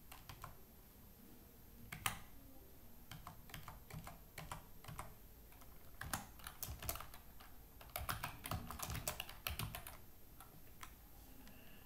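Computer keyboard typing: a few scattered keystrokes, then a quick run of typing from about six to ten seconds in.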